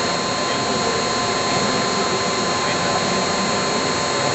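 Special-purpose unit machine tool on a production line running through its machining cycle: a steady mechanical noise with several constant high tones held throughout.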